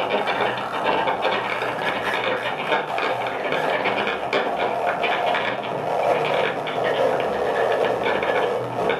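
Improvised noise music from a no-input mixing board's feedback and a bowed cello: a dense, steady, grainy buzzing texture with a low hum underneath.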